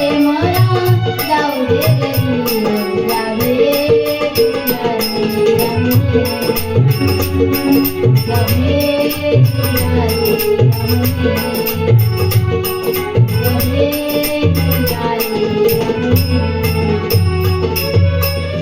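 Instrumental interlude of a Marathi gavlan folk song: a wavering melody line over a low drum beat, with a fast, even rhythm of bright metallic clicks on top.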